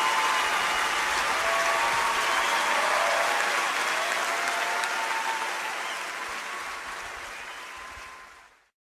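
A live audience applauding as a song ends. The applause fades out slowly and cuts to silence near the end.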